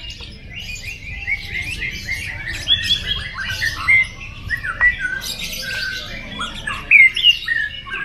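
Lutino lovebird 'ngekek': a long unbroken run of rapid, shrill chattering notes, the extended song that lovebird keepers prize. The chatter gets louder around three, four and seven seconds in.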